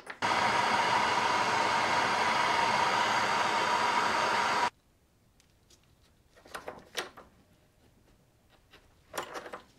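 Hand torch flame hissing steadily as it heats a fork red-hot to anneal it. It starts and stops abruptly and lasts about four and a half seconds, with a steady tone in the hiss. After it come a few faint metallic clicks and scrapes of the fork being handled in a ring-bending jig.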